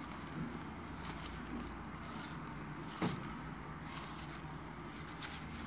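Faint rustling and soft pressing of a hand on a paper towel laid over a wet disposable diaper during a rewet test, over a steady low background hum, with one sharper tap about three seconds in.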